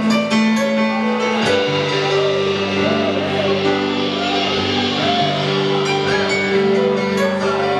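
Live worship band playing slow held chords with guitar, the chord changing about a second and a half in, with voices singing along.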